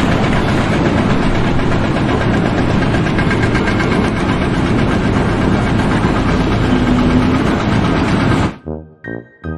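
A heavy engine running loud and steady, which cuts off abruptly near the end. Music with a pulsing beat follows.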